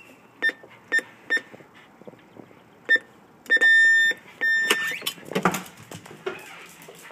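Four short electronic beeps, one per key press, then two longer beeps of the same pitch: a code being entered on an electronic door keypad. A dull thump follows.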